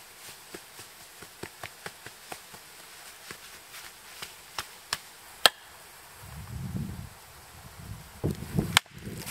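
Hands scraping and patting loose dirt among dry grass and twigs, making irregular light crackles and snaps, about three a second. A duller rustle follows, then a few sharper wooden knocks near the end.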